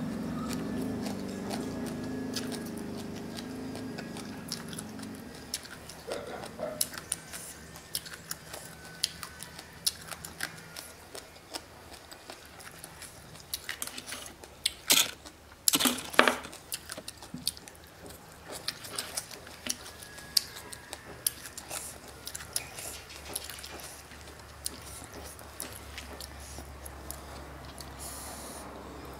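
Close-miked chewing of crunchy green papaya salad with noodles: a steady run of short crunches and mouth clicks, with two louder crunches about fifteen and sixteen seconds in.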